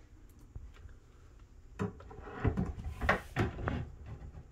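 Handling knocks and clicks of a cordless drill and screw being set against a metal drawer slide on a cabinet side, a run of them starting about two seconds in.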